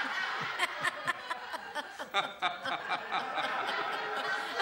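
Sitcom audience laughter, a crowd laughing together, with scattered sharp claps through it.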